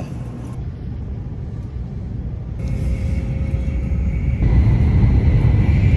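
Shinkansen bullet train running at speed, heard inside the passenger cabin: a steady low rumble that grows louder about halfway through, with a faint steady high whine joining a few seconds in.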